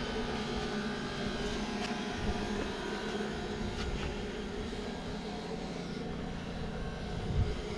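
Steady mechanical droning hum, with a single low knock near the end.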